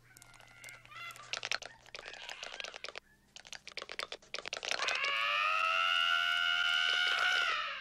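Cartoon sound effects for a scurrying cockroach: rapid runs of light clicking and tapping as its legs scramble over metal. About five seconds in, a loud held high-pitched note starts, lasts nearly three seconds and dips slightly in pitch at the end.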